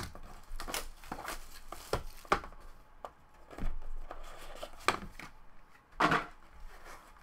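Plastic shrink wrap torn and crinkled off a cardboard trading-card box, then the box handled and its lid opened: an irregular run of crackles, rustles and sharp clicks, the loudest rustle about six seconds in.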